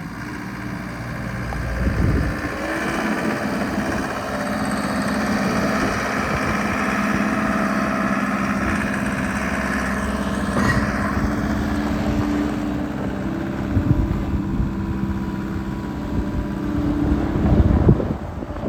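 Mustang 2200R skid steer's diesel engine running steadily, its pitch stepping up slightly about two-thirds of the way through, with a few clunks near the end.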